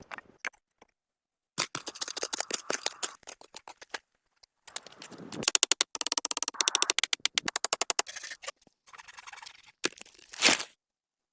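Short runs of quick, sharp scraping strokes, about ten a second at their busiest in the middle, broken by stretches of complete silence, with one louder scrape near the end.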